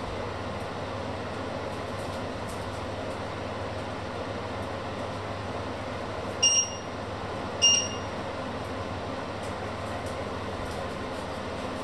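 Two short, high electronic beeps from a kitchen appliance, a little over a second apart near the middle, over a steady rushing background noise.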